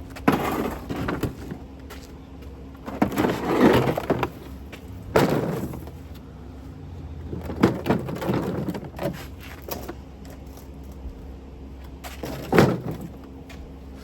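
Hollow plastic ride-on toy car body being handled: a series of irregular knocks, clatters and scrapes, the loudest a sharp bang about twelve and a half seconds in, over a steady low hum.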